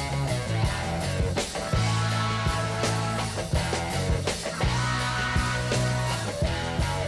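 Background music: guitar-based rock with a steady beat.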